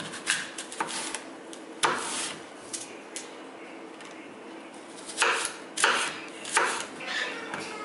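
Kitchen knife cutting an apple on a bamboo cutting board: crisp cuts through the fruit and knocks of the blade on the wood. A few strokes come in the first three seconds, then a louder run of four close together about five seconds in.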